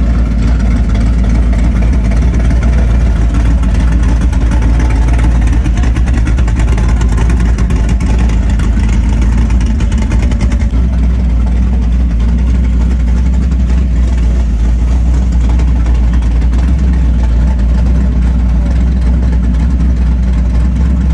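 Hot-rod Willys coupe's engine idling loudly with a steady, deep note as the car creeps past at walking pace, dropping slightly deeper about halfway through.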